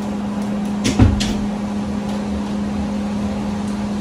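A steady low hum from a running kitchen appliance. About a second in there are a couple of sharp knocks with a dull thump, as a cup or dish is set down and handled on the counter.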